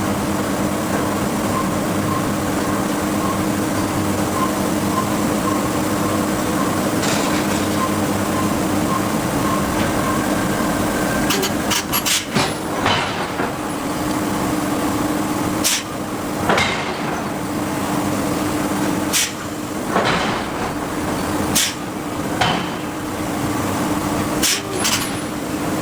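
Hydraulic forging hammer striking steel: a string of separate sharp blows, irregularly a second or two apart, starting about halfway through, over a steady machinery hum.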